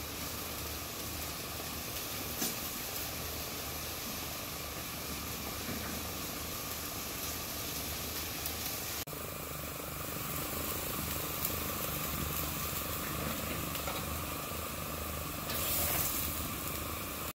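Steady hiss with a low hum underneath from a vertical döner grill cooking a cone of chicken, with a brief louder swell near the end.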